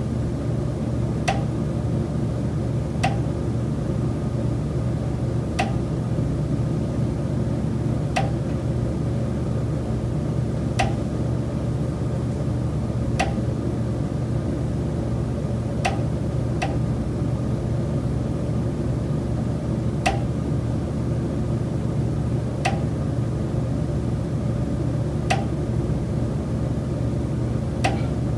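Recurring sharp knocks from the high-rise building's structure, about a dozen, one every two to three seconds, over a steady low mechanical hum. The knocking comes from the building's common elements, which the tenant holds is not a normal building noise.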